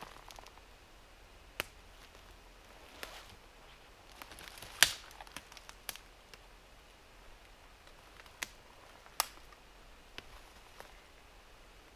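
Footsteps on dry forest litter, with scattered sharp snaps of twigs and branches underfoot, the loudest about five seconds in.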